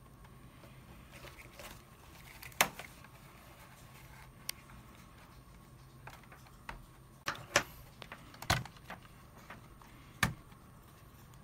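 Clicks and knocks of a plastic phone VR headset being handled, its parts moved and a smartphone fitted into its front tray. The clicks are sharp and separate, about half a dozen, with a cluster about seven to eight and a half seconds in and another about ten seconds in.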